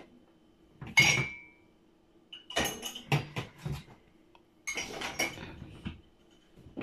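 Drinking glasses clinking against each other and the dishwasher's wire upper rack as they are loaded, with one clear ringing glass clink about a second in and two short bursts of clatter after it.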